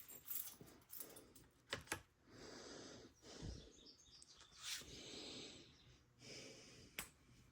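Near silence: faint background with a few soft clicks and rustles.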